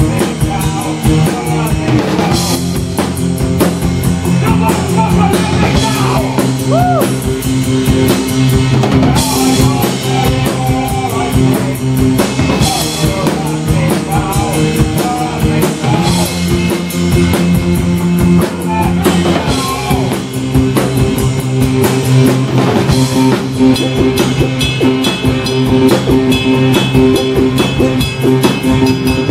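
A live rock band playing loudly, with a drum kit keeping a steady beat under guitar and keyboard.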